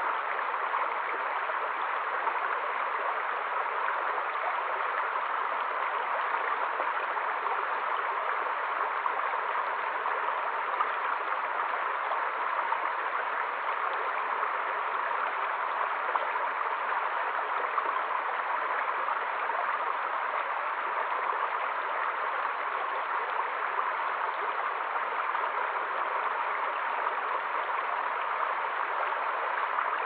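Shallow stream flowing steadily over rocks.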